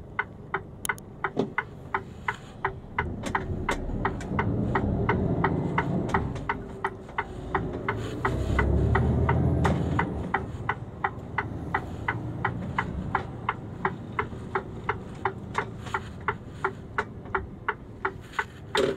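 Mercedes-Benz Actros truck's turn-signal indicator ticking steadily in the cab, about three ticks a second. Under it the diesel engine rumbles, swelling about four seconds in, loudest around nine seconds in, then settling back.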